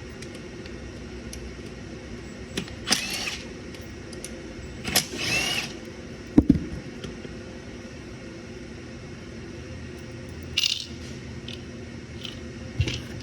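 Short bursts of a small power tool whining, each rising in pitch, spaced a few seconds apart as fasteners come off an engine under teardown. A single sharp metal clank comes a little past halfway, over a steady shop hum.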